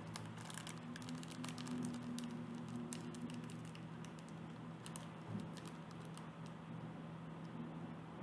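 Faint, scattered clicks and light rustling of small packaged items being handled: a keychain in a clear plastic bag and other things in a cardboard box, over a steady low hum.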